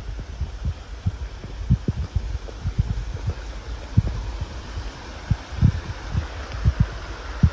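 Irregular low thumps, several a second, dull and bassy on the microphone, over a steady hiss.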